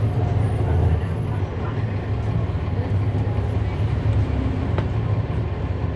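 Cummins ISL9 inline-six diesel of a NABI 40-SFW transit bus running, heard from inside the bus: a steady low engine drone with cabin and road noise over it.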